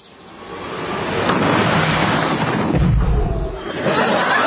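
Explosion: a rush of noise swells over the first second or so, with a deep boom about three seconds in, then a steady loud rush.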